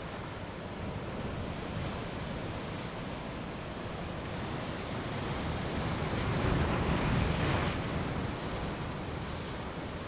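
Ocean surf washing against a rocky shore, a steady noisy wash with a wave swelling louder and breaking about two-thirds of the way through.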